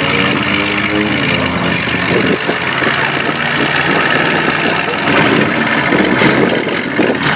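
Mercedes-AMG GT supercar's V8 engine idling loudly and unevenly.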